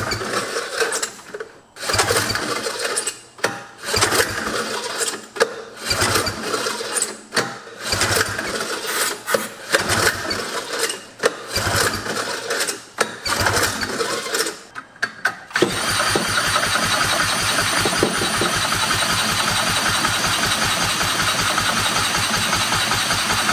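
Arctic Cat Panther's 303 cc Wankel rotary engine being cranked over in about eight short bursts, then spun continuously by a cordless drill on the crankshaft from about two-thirds of the way in, without catching.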